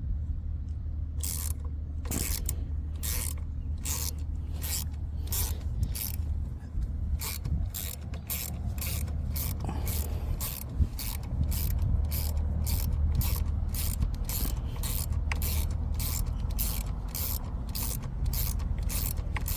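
Socket ratchet clicking steadily, about two clicks a second, as the shift lever's pivot bolt is driven in with a 6 mm hex socket.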